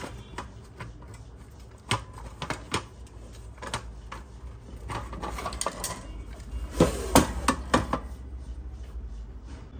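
Irregular clicks and knocks from a small handheld battery load tester being handled and opened up, with a quick run of sharper clicks about seven seconds in, over a low steady hum.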